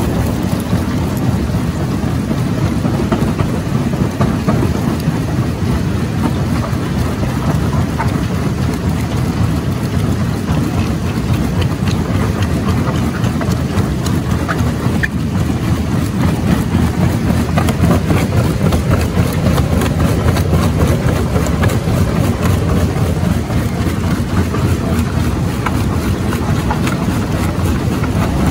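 Jaw rock crusher running under load, its jaws grinding and breaking rock in the crushing chamber. The result is a loud, steady, heavy mechanical rumble with a few faint sharp cracks of stone.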